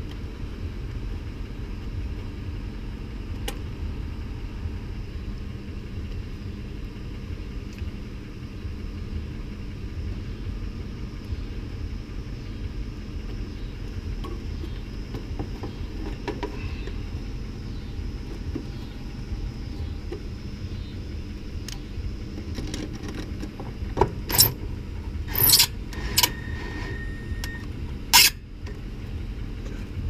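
A few sharp metallic clicks and clatters near the end as hands handle the capacitor and wiring in an air-conditioner condenser's electrical panel, over a steady low rumble.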